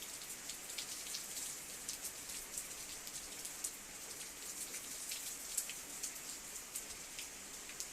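Heavy rain mixed with sleet falling steadily, with a constant hiss and many small sharp ticks of drops and ice pellets striking a surface.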